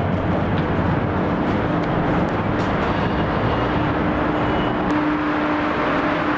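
Car ferry's engines and machinery running steadily, a constant low rumble with a held hum, heard on the open deck.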